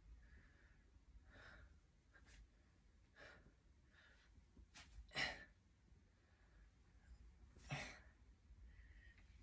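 A man's short, sharp exhales, several of them at uneven intervals, the loudest about five seconds in and again near the end, from the effort of throwing repeated punches.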